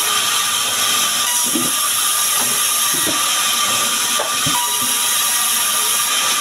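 Sawmill band saw running steadily and ripping small sengon timber into planks, a loud continuous hiss with a thin steady whine. Several dull knocks of planks and slabs being shoved across the saw table.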